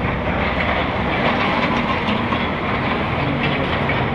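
Steady road noise of a car driving slowly, heard from inside the cabin: a low engine hum under tyre rumble and rushing air.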